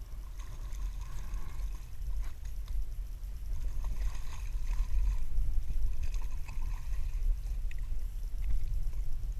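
A hooked fish thrashing and splashing at the water's surface beside a personal watercraft, strongest about four seconds in, over a steady low rumble.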